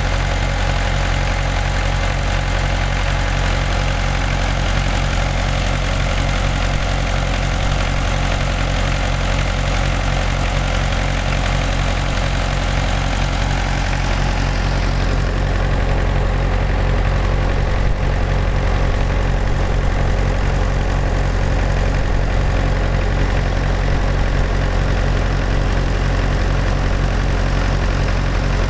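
International Harvester tractor engine idling steadily, with an even, low, regular firing pulse throughout; the higher hiss thins out about halfway through.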